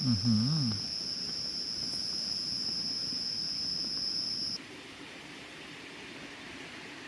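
An insect's loud, steady high-pitched call, held on one unbroken note, that stops suddenly about four and a half seconds in, leaving a soft even hiss. A brief low hum of a man's voice sounds at the very start.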